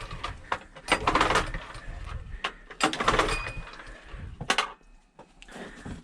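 Small gasoline engine being pull-started: about three short rasping pulls of the recoil starter, roughly a second and a half apart, with clatter in between. The engine doesn't catch, a sign of fuel starvation that the owner thinks priming the carburetor float bowl may fix.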